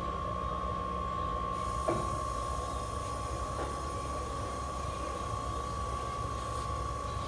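Summit 14/18 x 40 gap-bed engine lathe running in a different speed range, a steady high whine over a low hum. A light click about two seconds in, and a fainter one shortly after.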